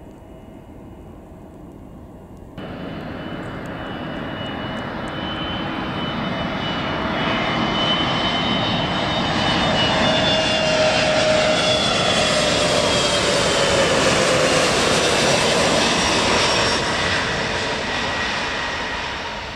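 Airbus A320neo's turbofan engines on landing approach: the jet noise jumps louder about two and a half seconds in, swells to its loudest as the aircraft passes close by, with its whine tones gliding down in pitch, then fades as it descends toward the runway.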